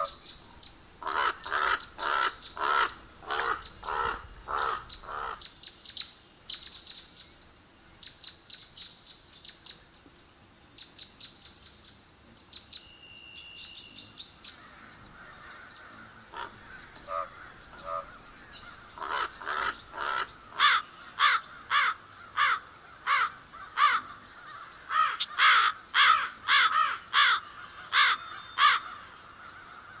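Crows cawing: a run of about eight harsh caws, then fainter, quicker, higher calls, then a long run of loud repeated caws near the end.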